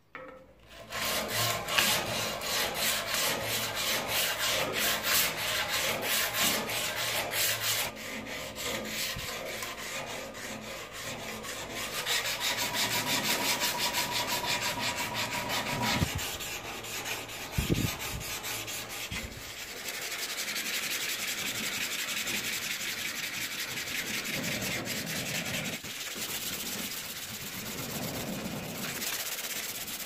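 A hand-held abrasive pad scrubbing rapidly back and forth over the steel blade of a billhook, cleaning the residue off the freshly acid-etched surface. The rubbing strokes are steady and fast, easing off for a moment a few times.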